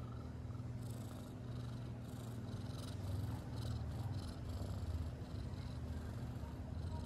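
A tabby-and-white domestic cat purring close up: a steady low rumble that swells and eases about once a second with its breathing.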